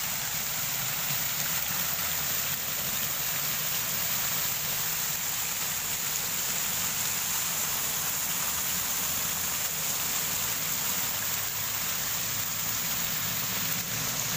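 Muddy floodwater from an overflowing river rushing and pouring over a concrete edge, a steady, unbroken noise of moving water.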